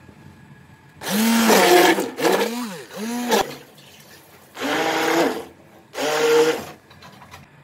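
Electric hand blender running in five short bursts, each rising in pitch and dropping away, as it whisks yogurt, water and gram flour into a thin lassi.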